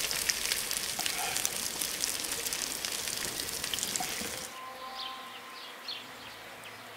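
Buckwheat cutlets frying in hot oil in a pan, a steady sizzle with crackles. It cuts off abruptly about four and a half seconds in, leaving quieter outdoor air with birds chirping.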